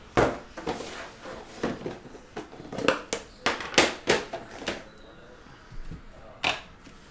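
Sealed trading-card boxes being handled and shifted on a mat-covered table: a run of short knocks and rustles, busiest in the middle, with one more louder knock about six and a half seconds in.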